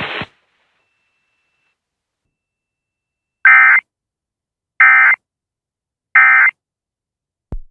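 Three short bursts of Emergency Alert System digital data, about 1.4 s apart: the SAME end-of-message code, each burst a brief harsh warble of data tones, marking the end of the weather radio alert. Before them the radio's hiss cuts off just after the start, and a click comes at the very end.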